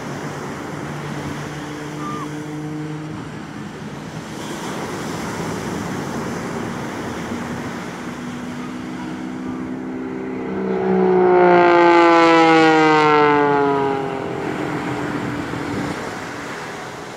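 Display aircraft trailing smoke, its engine droning steadily overhead. About ten seconds in it makes a louder pass, its pitch sliding down as it goes by, then fades back to a drone.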